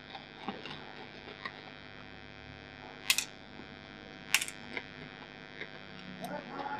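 Screws being undone from a circuit board with a small screwdriver: faint scrapes and ticks over a steady electrical hum, with two sharp clicks about three and four and a half seconds in.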